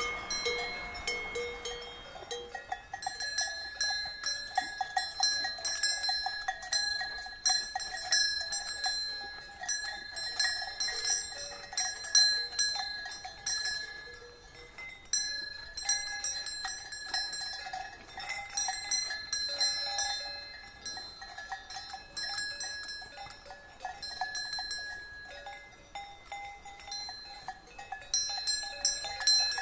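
Brass cowbell on a grazing cow's neck chain clanking and ringing at an uneven rhythm as the cow moves its head over the grass.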